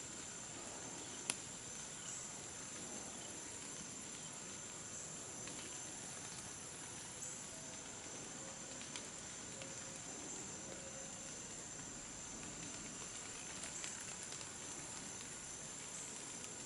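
Insects trilling steadily, a faint high-pitched chorus of crickets or katydids, with one sharp click about a second in.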